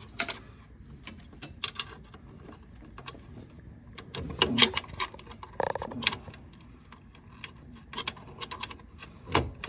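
Scattered light clicks and small metallic rattles of an accelerator cable and its fittings being handled and worked into place on a golf cart engine, busiest around the middle.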